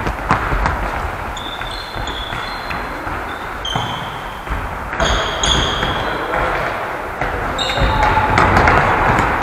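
Indoor futsal on a sports-hall floor: the ball being kicked and bouncing, with short high squeaks of trainers on the floor several times as players turn and run.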